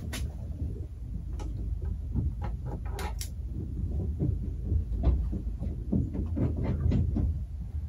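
Irregular light clicks and scrapes of a small hand tool being worked at the spark plug hole in a vintage outboard's cylinder head, busier in the second half, over a steady low hum.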